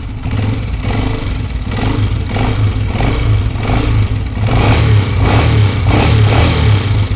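Honda CG125 single-cylinder four-stroke engine running after a pin under a cylinder-head bolt was turned to cure its engine noise, with a regular swell about every two-thirds of a second.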